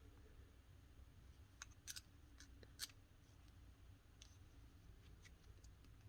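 Near silence with a few faint, sharp clicks of small parts being handled during a teardown, about eight scattered irregularly, the loudest two and three seconds in.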